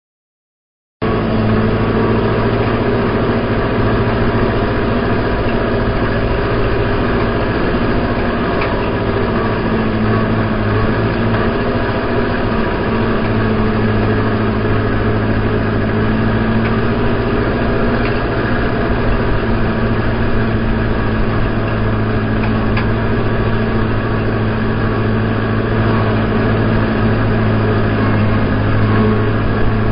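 Steady drone of a tractor engine pulling a New Holland side-delivery hay rake whose reel is turning through cut hay. The sound cuts in abruptly about a second in and holds steady.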